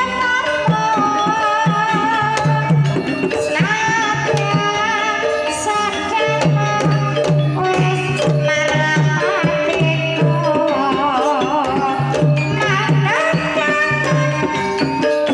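Banyumasan tayub gamelan music: a sinden (Javanese female singer) sings an ornamented, wavering melody over a steady hand-drum (kendang) pattern and pitched gamelan instruments.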